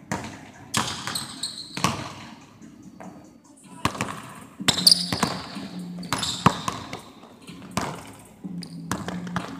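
Basketball dribbled on a hardwood gym floor, the bounces coming at an irregular pace and echoing around a large hall.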